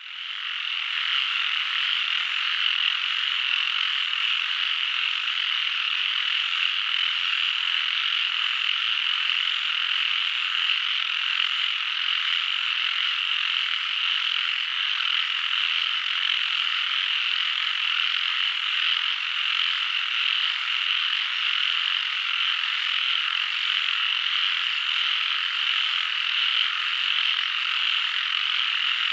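Dense frog chorus: many frogs calling at once in a steady, high-pitched din that swells in over the first second.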